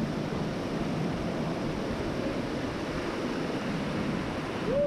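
Mountain creek cascading over rocks in a small waterfall: a steady rush of water. A brief voice-like sound comes just before the end.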